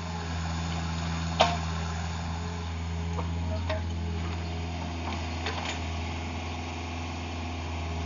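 Takeuchi TB150 mini excavator's diesel engine running steadily, with a sharp knock about a second and a half in and a few lighter knocks later.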